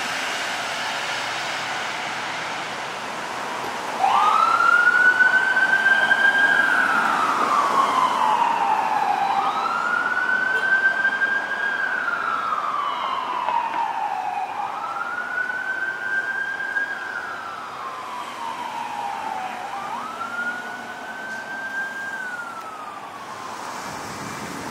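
Emergency wail siren of a Seattle Fire Department Medic One ambulance leaving on a call, with lights on. There are four slow wails, each rising then falling over about five seconds, and they fade as the ambulance drives away. Engine and road noise come before the siren starts, about four seconds in.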